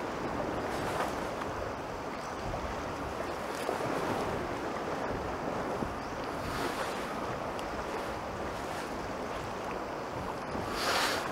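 Sea surf washing steadily with wind noise on the microphone. A few brief louder swishes rise out of it, the loudest near the end.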